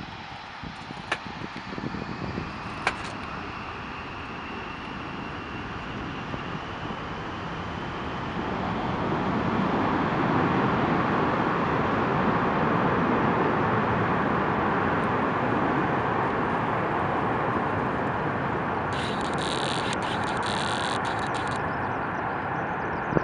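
Douglas DC-8-62's four JT3D turbofan engines at takeoff power: a faint rising whine early on, then a steady jet noise that builds over several seconds to full loudness and holds. A few sharp clicks near the start and a brief high hiss late on.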